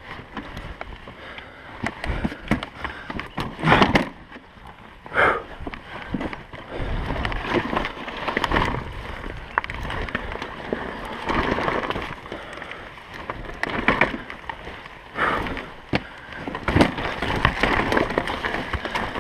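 KTM 200 XC-W single-cylinder two-stroke dirt bike engine running at low revs while picking its way over rough, rocky trail, with uneven surges of throttle every few seconds.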